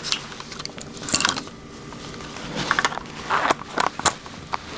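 Small clicks, taps and scrapes of plastic and metal parts being handled and fitted into a Prusa XL Nextruder extruder assembly, with a small screwdriver working in it. The sounds come in short, irregular bunches.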